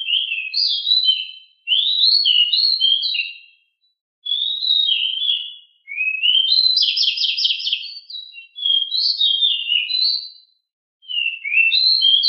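A small songbird singing a fast, varied song of high clear notes that slide up and down, delivered in about six phrases with short pauses between them. One phrase in the middle holds a rapid trill of repeated notes.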